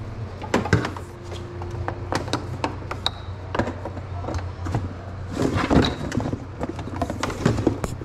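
Power cables being handled and plugged into a mining rig's server power supplies: a scattered string of sharp plastic clicks and knocks, busiest about halfway through. A steady low hum runs underneath.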